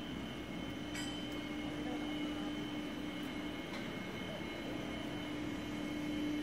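PVC marble sheet extrusion line running: a steady machine drone with a constant low hum and a fainter high whine. A faint click comes about a second in and another just before four seconds.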